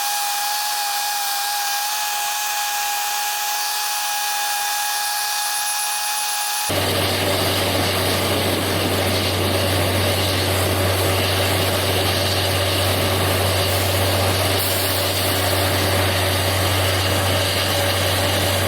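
Heavy pile-driving machinery running steadily. There is a high whine for the first several seconds. About seven seconds in it switches abruptly to a louder, dense drone with a deep hum underneath. No separate hammer blows are heard.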